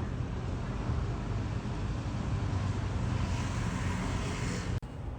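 Steady outdoor background noise with a low rumble, of the kind a vehicle passing or running nearby makes. It cuts off abruptly near the end.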